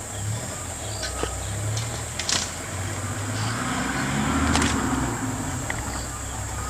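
Low, steady vehicle engine hum, with a constant high insect drone and a few sharp clicks; the noise swells briefly about two-thirds of the way through.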